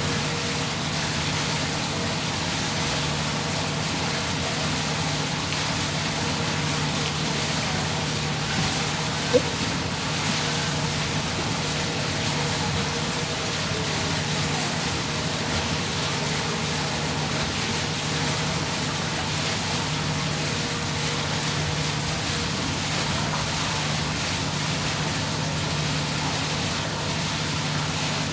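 Steady machinery hum from a moored ship, with a constant low drone under a haze of wind and water noise. A single sharp click about nine seconds in.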